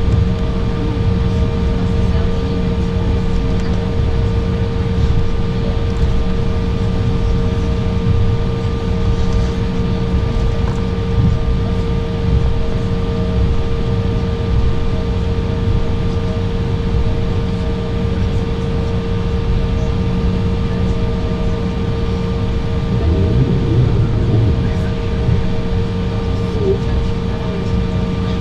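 Cabin noise of an Embraer 195 taxiing after landing: a steady drone from the GE CF34 turbofans at idle and the cabin air system, with several steady humming tones over a low rumble.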